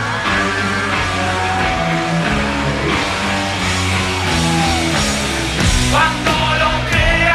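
Live rock band playing an instrumental passage: steady bass notes under gliding electric-guitar lines, with drum hits coming in strongly about six seconds in.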